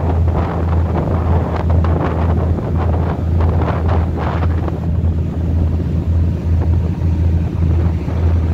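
Ship's engine droning steadily, low and loud, while the vessel runs under way, with wind buffeting the microphone in gusts, mostly in the first half, and wake water rushing alongside.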